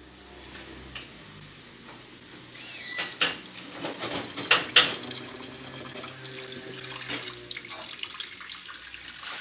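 Kitchen tap running into the open spout of a carton held in the sink, the stream splashing off the carton and the sink basin. A few sharp knocks and splashes stand out about three to five seconds in.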